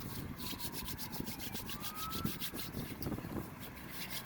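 Hands rubbing briskly together, working in hand sanitizer: a fast scratchy rhythm of roughly eight to ten strokes a second that stops about three seconds in. A faint tone slides down and then back up behind it.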